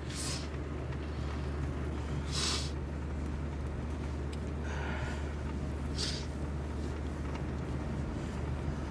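Steady low drone of a car running, heard from inside the cabin, with four short sniffs.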